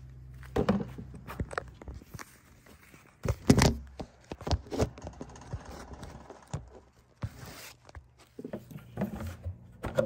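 Footsteps and irregular knocks and thumps of things being handled, with the loudest thump about three and a half seconds in.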